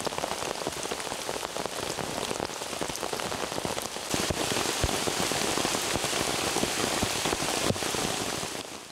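Heavy rain falling on a forest stream and leaf litter: a steady hiss of drops with scattered louder taps. It gets louder about four seconds in and fades out at the very end.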